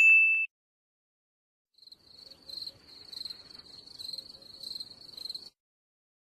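A short, high ding at the very start, then, after a pause, crickets chirping steadily in quick pulses for about three and a half seconds: the 'crickets' meme sound effect for an awkward silence.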